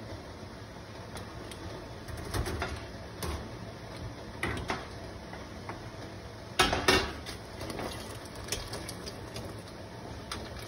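Metal jar lifter clinking against a stainless steel stockpot and glass canning jars as jars are lifted out of hot sterilizing water, with water splashing and pouring off a jar. A scatter of short knocks over a steady low hum, the loudest two close together about six and a half seconds in.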